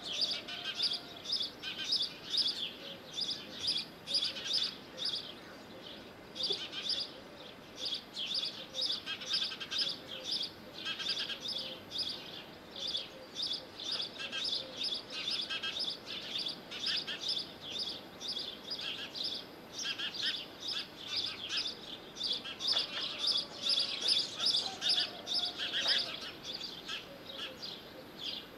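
Small birds chirping rapidly and continuously, several short high chirps a second with brief pauses.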